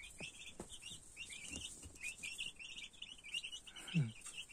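Chicks peeping: many quick, high, down-slurred chirps crowding over one another with no break. About four seconds in, a single short low sound falls in pitch over them.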